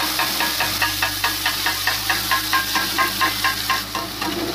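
Oil sizzling in a steel kadhai as ground green chilli, ginger and anardana paste drops in, over a fast run of ringing metallic taps, about five a second, as the steel mixer-grinder jar is knocked to shake the paste out. The tapping stops near the end, leaving the sizzle.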